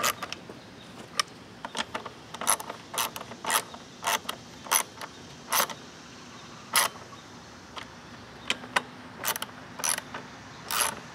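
Ratchet wrench tightening loose cover bolts on a Kohler lawn mower engine: a run of short, sharp ratcheting clicks, one or two a second, with a brief pause a little past halfway.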